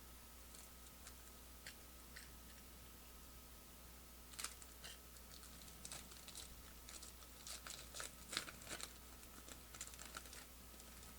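Faint clicks and rustles of thick plastic trading cards being handled and slid against one another, a few at first and then a busier flurry in the middle and later part.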